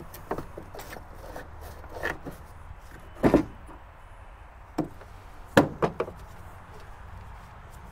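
Scattered sharp clicks and knocks of hand tools and small metal parts being handled while working on a mower's drive housing. The loudest knock comes about three seconds in, and two more come close together near six seconds.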